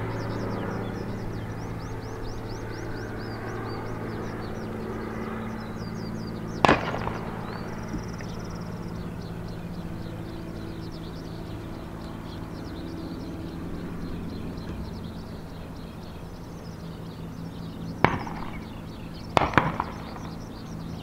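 Cessna T206H Turbo Stationair amphibian's turbocharged six-cylinder engine and propeller droning steadily as the floatplane climbs away, slowly fading. A bird chirps rapidly and high in the background, and three sharp knocks cut in, one about a third of the way in and two close together near the end.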